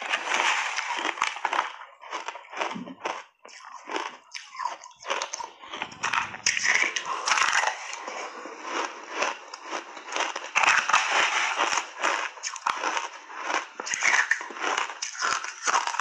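Close-miked crunching and chewing of shaved ice dusted with matcha powder: big mouthfuls broken up in rapid, irregular crackling bites.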